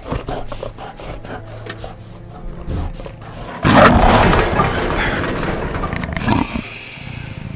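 Film velociraptor growling with rough crackly noises, then a sudden loud call about four seconds in that trails off over about two and a half seconds.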